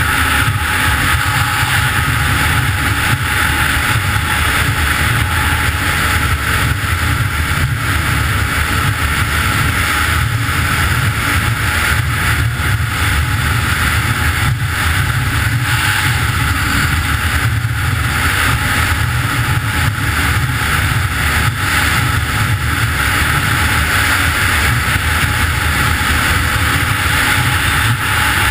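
Snowmobile engine and track running steadily while the sled rides across snow, heard from on board with wind noise on the microphone.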